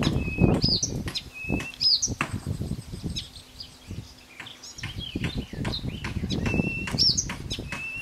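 Blyth's reed warbler singing: short high phrases repeated over and over, each an arching note followed by a level whistle, with wind rumbling on the microphone.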